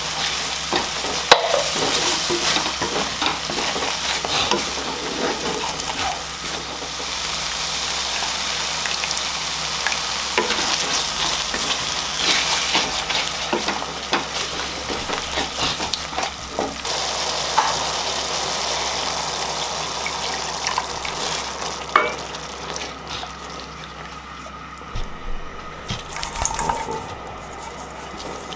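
Spiced curry paste sizzling and frying in a kadai while a wooden spatula stirs and scrapes it, with the odd sharp knock of the spatula on the pan. The frying grows quieter over the last several seconds.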